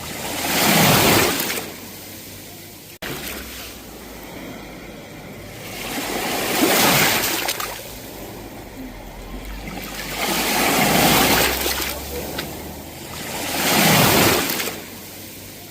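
Sea waves breaking and washing up on the shore: four waves, each swelling and fading over a couple of seconds, with a steady hiss of surf between them.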